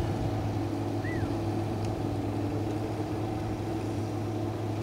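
Outboard racing hydroplane's engine running steadily at speed, heard from across the water as an even drone.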